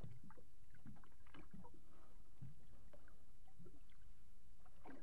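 Small waves lapping against the hull of an anchored fishing boat, over a steady low rumble of wind on open water.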